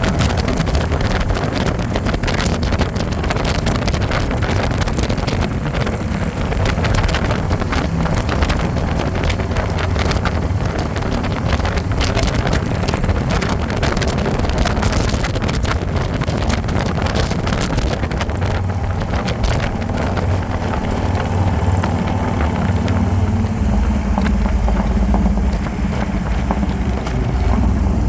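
Harley-Davidson motorcycle running at road speed, a steady low engine rumble with heavy wind buffeting the microphone.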